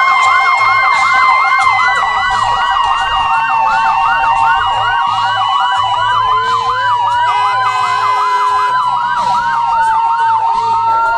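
Several police car electronic sirens sounding together: a fast yelp rising and falling about three times a second over a long, slowly drifting wail tone.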